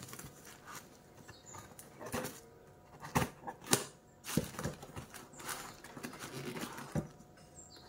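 A small cardboard shipping box being handled and its flaps pulled open over a plastic bag, with rustling and several sharp knocks and taps, the loudest about three to four seconds in.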